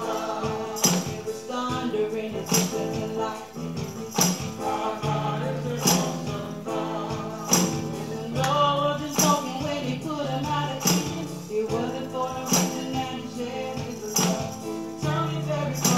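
Gospel worship music: singing over held chords and a steady beat, with a sharp accented hit about every second and a half.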